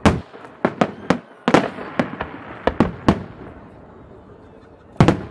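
Aerial firework shells bursting in a rapid, irregular series of sharp bangs, with crackling between them. The bangs thin out past the middle, and a loud burst comes near the end.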